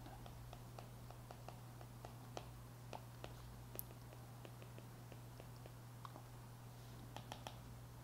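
Faint clicks and taps of a stylus writing on a tablet's glass screen, several a second with a brief flurry near the end, over a steady low hum.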